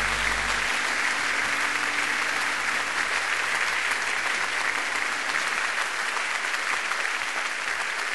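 Concert audience applauding steadily at the end of a live song, as the last low notes of the accompaniment fade out in the first second.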